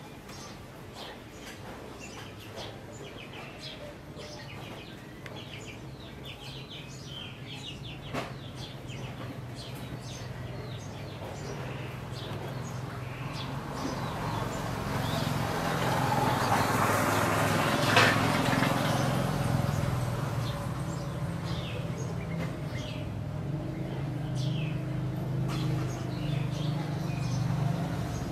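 Short, high bird chirps scattered throughout over a low background hum. The hum swells to its loudest in the middle, with a sharp click at its peak, then eases off a little.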